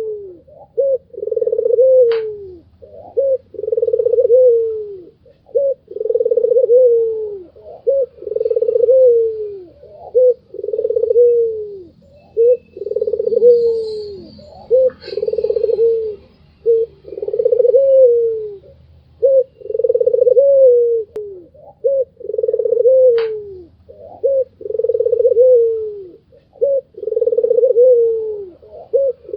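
White ringed turtle dove (puter putih) cooing over and over: a low call about every two seconds, each one dipping in pitch at its end, with short notes between.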